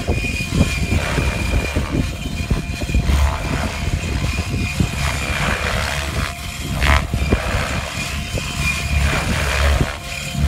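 Electric 700-size Gaui X7 RC helicopter, driven by a Scorpion 4525 motor, flying low: a steady high whine from the motor and drivetrain over the whoosh of the rotor blades, which swells and fades as it manoeuvres.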